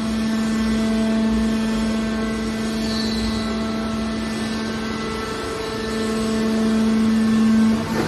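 Hydraulic scrap metal baler running with a steady mechanical hum as its ram pushes a pressed bale of scrap wire out of the chamber. The hum grows louder near the end and then drops back.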